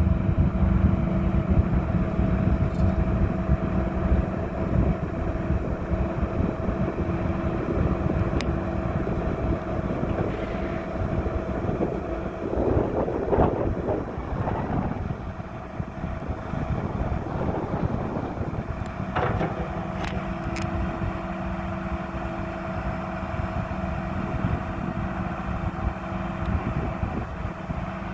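Kubota SSV75 skid steer loader's diesel engine running steadily at idle, with a rougher, noisier stretch about halfway through.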